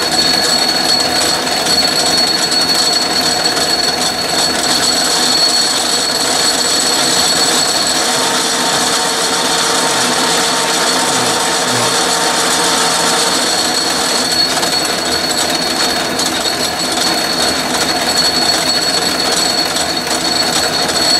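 Atlas metal lathe running under power while a boring-bar threading tool cuts an internal thread in a steel bore: a steady mechanical running noise with a thin, high, steady whine.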